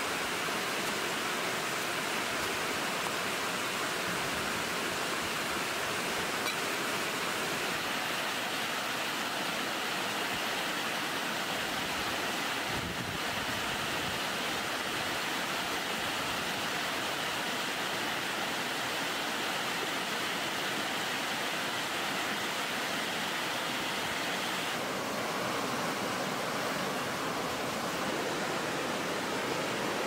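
Steady, even rush of flowing water from a rocky stream and small waterfall.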